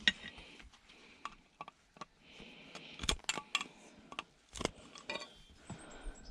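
Irregular clicks, clinks and knocks of hand tools and small metal parts being worked during an electronics teardown, with two louder knocks about three and four and a half seconds in and a short scraping stretch between them.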